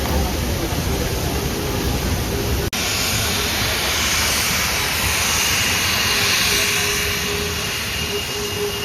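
Steady rumbling noise of a train ride. About two and a half seconds in there is a cut to a louder, steady hiss, with a faint high tone running through it near the end.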